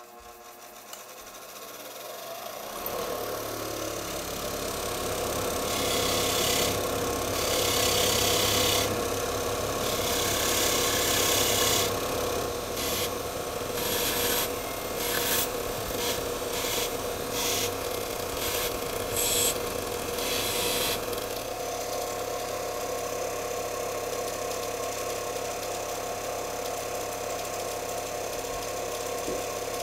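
Bench grinder motor coming up to speed and running with a steady hum. From about six to twenty-one seconds in, a wire wheel scratches against small steel buttonhole scissors in repeated passes, scrubbing dirt and a spot off the blades. After that the grinder runs on with nothing against the wheel.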